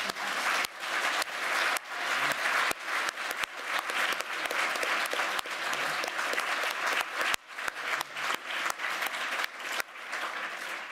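Lecture-hall audience applauding, a dense steady clapping.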